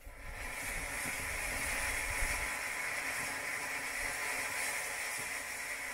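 Green & Blue Fountain, an F1 youth-firework ground fountain, hissing steadily as it sprays a jet of sparks. The hiss comes in within the first moment and then holds even.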